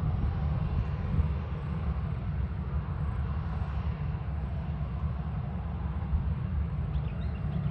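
Boeing 737-800's CFM56 jet engines at low taxi thrust, heard from beside the runway as a steady low rumble with a faint hiss above it.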